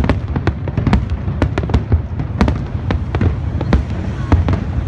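Aerial fireworks bursting: a sudden loud report, then an irregular run of many sharp cracks over a continuous low rumble of booms.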